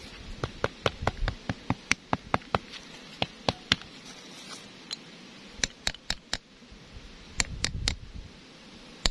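Quick light taps of a wooden block driving a new 50×70×12 rubber oil seal into the metal seal housing of a rotary tiller's wheel axle, worked round the seal's rim. The taps come about four a second at first, then in short runs of three to five with pauses between.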